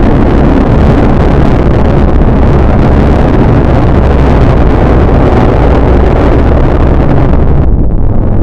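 Loud, dense, distorted electronic noise with its weight in the low rumble and no clear pitch or rhythm. About three-quarters of the way through, the high end drops out and the rumble carries on.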